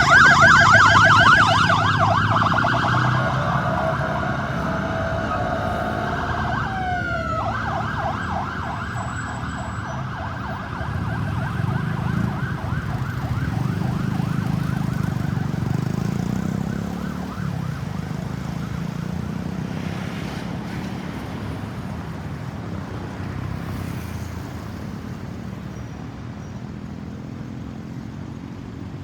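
Ambulance siren yelping rapidly, loudest at first and fading as the vehicle moves away. About seven seconds in it changes with a short swooping glide before the yelp resumes. Road traffic noise runs beneath it, swells as a vehicle passes midway, and is left alone after the siren dies out.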